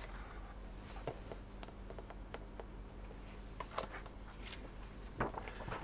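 Faint rustling and light taps of paper sheets being handled and laid down, over a steady low hum.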